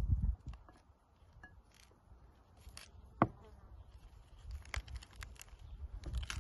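Pomegranate being broken apart by hand, its arils crackling and pattering as they are picked loose into a bowl, in scattered small clicks. One short sharp ping about three seconds in is the loudest sound, with a low rumble at the start and near the end.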